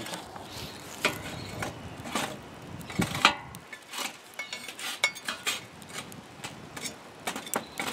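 Metal tongs clinking and scraping as charcoal briquettes are moved around under a cast iron Dutch oven, with a metal charcoal chimney starter set down on a metal pan: an irregular run of small metallic clicks, clanks and scrapes.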